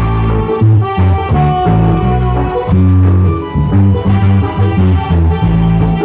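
Live reggae band playing: a strong bass line and drum kit with congas under saxophones, trumpets and flutes.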